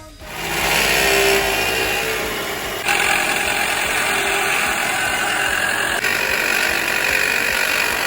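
Toyota Probox engine running with a dull droning noise from its alternator, the abnormal noise that leads to the alternator being replaced. The sound shifts abruptly twice.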